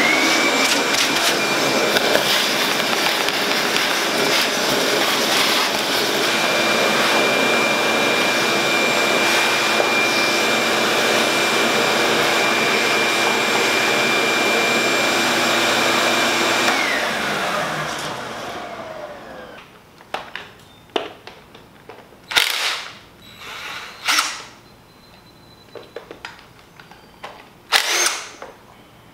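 Ridgid wet/dry shop vacuum switched on, running steadily for about seventeen seconds, then switched off, its motor whine falling as it winds down. A few short, sharp knocks and clicks follow.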